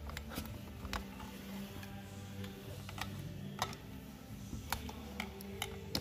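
Irregular sharp metallic clicks and taps, about eight of them, as a long screwdriver prods and pries at parts inside a disassembled Ford steering column.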